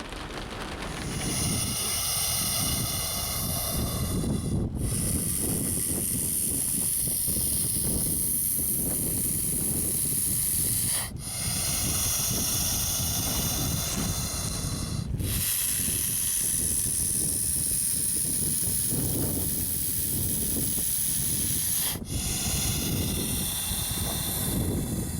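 Bullsnake hissing loudly in a defensive display: long, steady hisses broken by four brief pauses. The hiss is made by forcing air out through the glottis and sounds like a rattlesnake.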